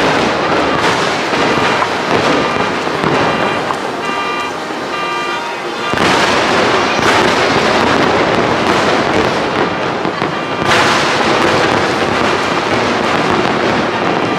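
Fireworks display going off continuously in a dense barrage of bangs and crackling, with fresh loud volleys about six seconds in and again near eleven seconds.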